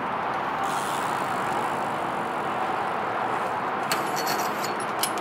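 BMX bike tyres rolling over skatepark concrete, a steady rushing noise. About four seconds in, a short run of clicks and knocks as the bike hits the concrete box ledge.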